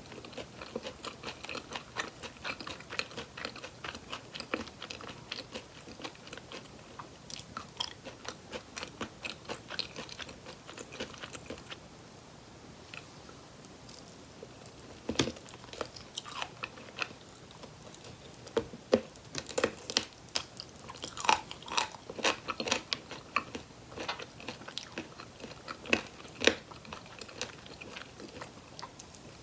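Close-miked eating of fried chicken drumsticks: quick, steady chewing for about the first twelve seconds, a brief quieter stretch, then louder crisp bites and crunching of the coating from about halfway through.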